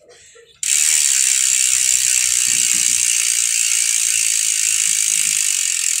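Sword SWO2.3 six-pawl rear hub's freehub buzzing as the rear wheel spins freely, a dense, steady, high-pitched ratcheting buzz of pawl clicks that starts suddenly about half a second in.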